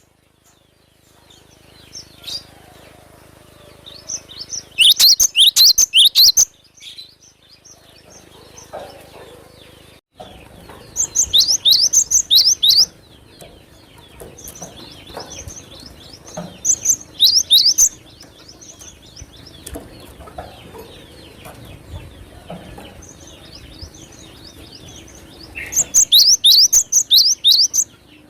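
Cinereous tit (gelatik batu) song: four loud bursts of rapid, sharp, high notes repeated in quick series, a few seconds apart. Fainter scattered chirps fill the gaps between bursts.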